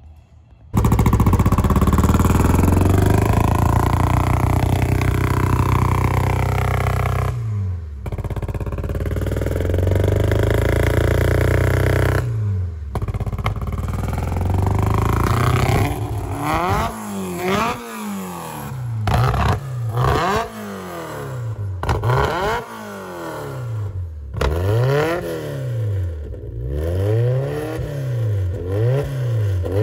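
Freshly built Honda VTEC engine starting about a second in and running, then revved again and again in the second half, its pitch rising and falling with each blip of the throttle. The exhaust note is deep and rowdy.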